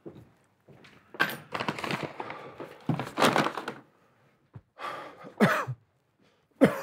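A man breathing heavily, with rustling, then two sighs with voice in them that fall in pitch near the end.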